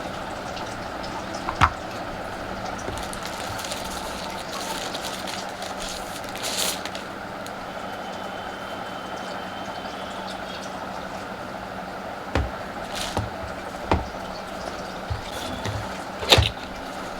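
Handling sounds: a few scattered clicks and light knocks, the loudest near the end, over a steady background hiss and a faint low hum.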